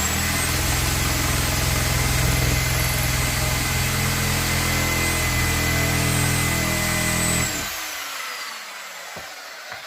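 Electric circular saw running and cutting through wood, its motor whining steadily. About seven and a half seconds in the cut stops and the blade coasts down with a falling whine.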